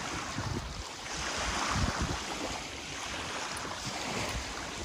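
Wind blowing across the microphone: a steady rushing noise with low rumbling buffets, swelling into a stronger gust a second or two in.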